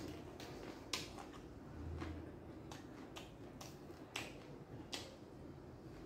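A person chewing a mouthful of food up close, giving a dozen or so short, crisp crunches and mouth clicks at uneven intervals.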